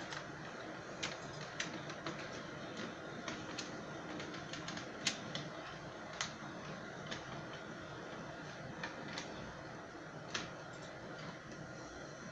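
HO scale 2-8-0 steam locomotive model with a Soundtraxx Tsunami2 sound decoder running on the layout: a steady hiss from its speaker with sharp clicks at irregular spacing, the loudest about five seconds in.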